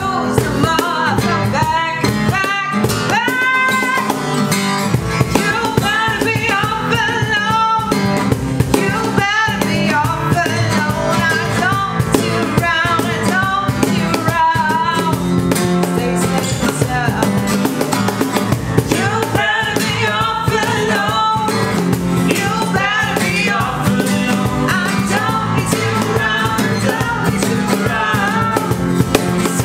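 Acoustic guitar strummed over a cajon beat, with voices singing a pop-rock song.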